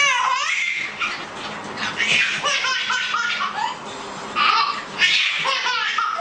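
A baby laughing hard, with belly laughs coming in several bursts and short breaks between them.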